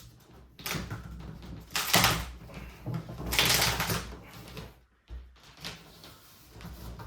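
Packaging being pulled and worked off a new bicycle in its box: rustling, scraping and clattering in several bursts, the loudest about two seconds and three and a half seconds in.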